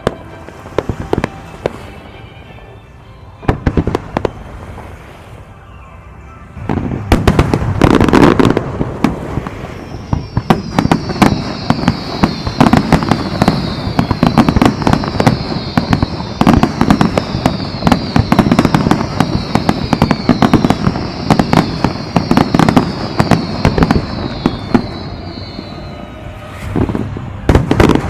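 Fireworks display: scattered pops and crackles, then a dense barrage of bursting shells and crackle begins about seven seconds in and keeps going, with another volley near the end.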